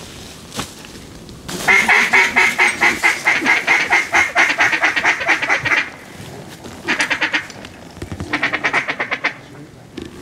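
Duck call blown in a long run of rapid quacks lasting about four seconds, followed by two shorter runs, calling to ducks overhead.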